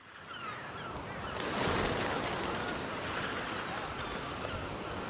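Layered nature ambience from sound-effect recordings: bird calls with short chirps, joined about a second and a half in by a steady rushing hiss that lasts to the end.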